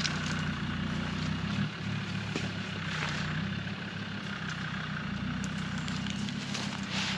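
A steady low mechanical hum, like an engine running, with a few brief rustles and clicks over it.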